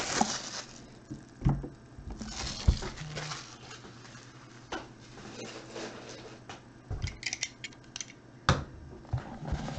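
Handling noises from unwrapping a cardboard trading-card box: plastic shrink-wrap crinkling at the start, then scattered light taps and clicks. A quick cluster of small crackles comes about seven seconds in, and a sharper knock follows a second or so later.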